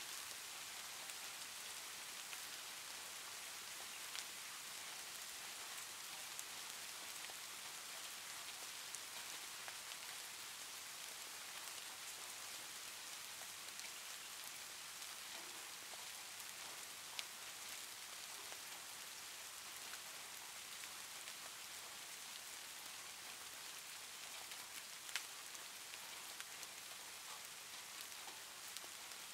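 Faint, steady hiss like falling rain, with a few scattered soft ticks.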